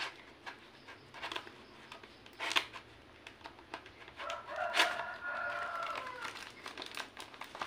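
A knife blade cuts through the packing tape and plastic wrap of a parcel, with small clicks and crinkles. About four seconds in, a rooster crows once, a long call of about two seconds.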